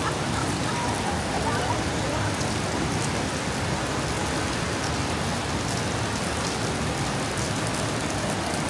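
Steady heavy rain, a constant hiss with faint ticks of drops.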